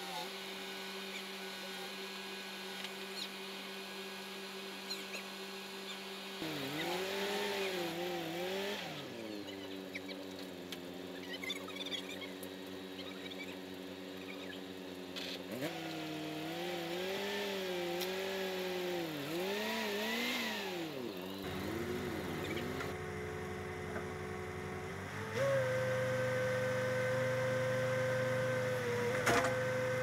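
Small farm tractor engine running: it idles steadily, then is revved up and down repeatedly in two spells while it pulls the backhoe's rear axle out, and is held at a steady, louder, higher speed near the end.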